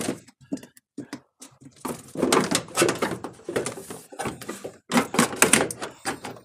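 Plastic windshield cowl panel on a 2022 Ford Maverick knocking and clicking as it is pried and worked loose from its retaining clips, a quick run of sharp knocks that comes thicker about two seconds in.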